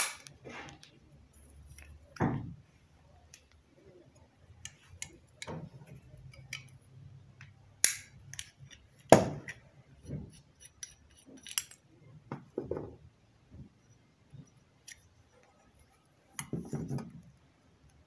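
Scattered metal clicks and knocks of hand tools on a blender motor as the coupler is worked off the armature shaft with locking pliers, with a short burst of handling noise near the end.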